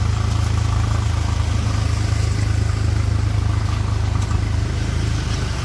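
An engine idling steadily, a continuous low hum.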